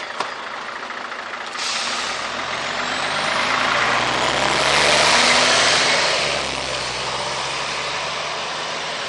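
Irisbus Citelis city bus engine picking up about two seconds in, growing louder for a few seconds as the bus gets under way, then easing back to a steady run. It is noisy enough to spoil the sound.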